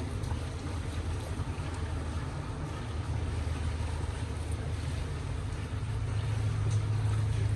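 Steady low rumbling noise with a hiss over it, growing somewhat louder about six seconds in.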